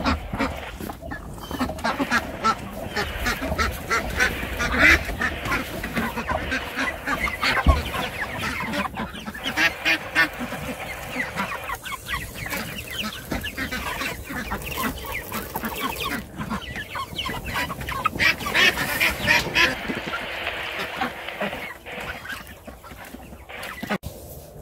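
A flock of white ducks quacking, and later meat chickens (broilers) calling in their pasture pen, with many calls overlapping throughout and thinning out near the end.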